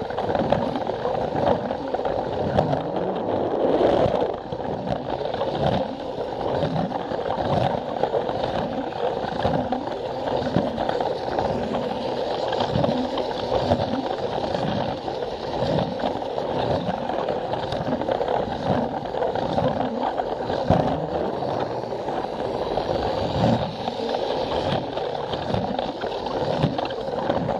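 Battery-powered Plarail toy train running on plastic track, its small motor and gears whirring steadily with regular clacks about once a second as the wheels cross the track joints.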